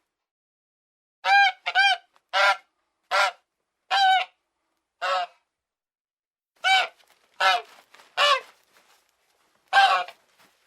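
Goose honking: about ten short honks in irregular runs, with silent gaps between, the longest gap in the middle.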